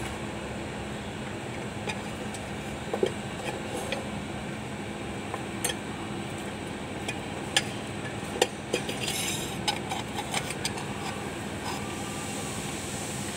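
Steel drive-shaft parts being handled on a workbench: scattered clinks and light knocks of metal on metal, thickest in a cluster a little past the middle, over a steady background hum.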